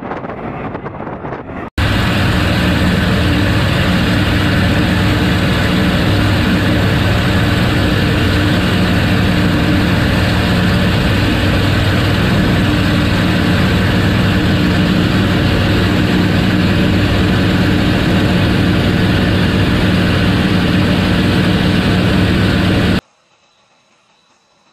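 Wind noise, then from about two seconds in a loud, steady drone of an aircraft in flight: a constant low engine hum under rushing air. It cuts off suddenly near the end.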